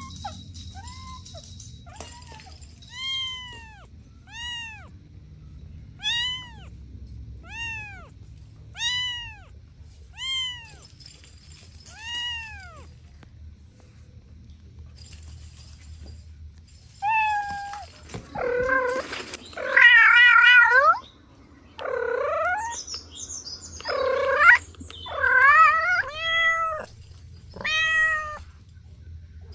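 Kittens mewing: a run of short, high, evenly spaced mews, about one every second and a half, then after a pause a series of louder, longer meows that vary more in pitch.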